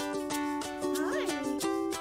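Upbeat background music led by a plucked ukulele-like instrument. About a second in, a short high puppy whine rises and falls over it.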